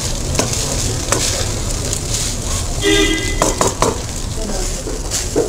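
Fried rice sizzling in a hot nonstick wok as it is stirred and tossed with a spatula, with several scrapes and knocks of the spatula against the pan. A brief pitched tone sounds about three seconds in.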